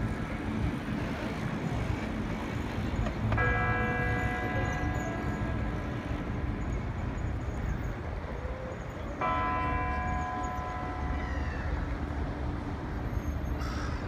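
Royal Palace tower bell tolling slowly: two strikes about six seconds apart, each ringing on with many overtones and fading away, over a steady low rumble of city noise.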